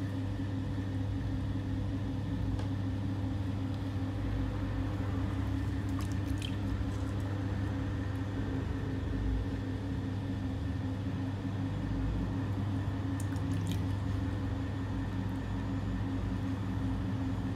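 Pottery wheel running with a steady low hum while wet stoneware clay squelches under the hands as it is pressed down and centred on the spinning wheel head.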